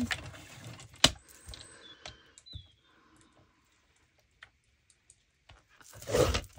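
Scrapbook paper being handled and adjusted: light rustling and small taps, a sharp click about a second in, and a short, louder rustle near the end.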